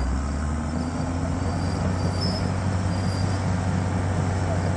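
2005 Cat D5N LGP crawler dozer's diesel engine running steadily under load as the dozer drives forward, pushing a pile of dirt with its blade.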